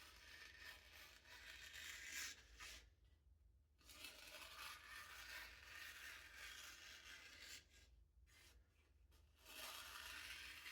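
Freshly sharpened kitchen knife slicing through paper: a faint, soft hiss in three stretches with short pauses between, the sign of a very keen edge cutting almost silently.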